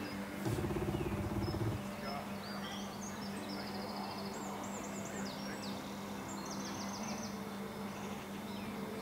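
Small birds chirping and trilling in short phrases, over a steady low hum. About half a second in, a louder low buzzing noise lasts just over a second.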